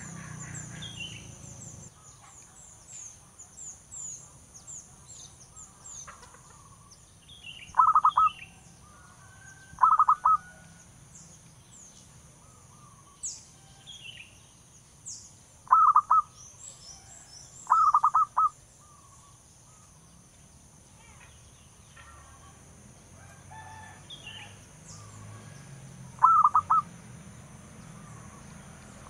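Zebra dove (perkutut) singing: five short bursts of rapid staccato cooing notes, two pairs about two seconds apart and then a single one near the end. Faint high chirps of small birds sound between them.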